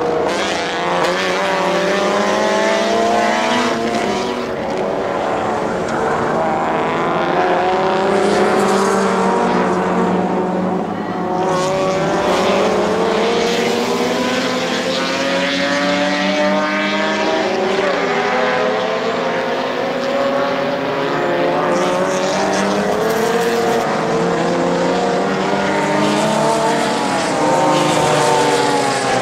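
Several GT300/ST300 class race car engines at high revs, their notes climbing as the cars accelerate and dropping at gear shifts and under braking, overlapping as the pack passes.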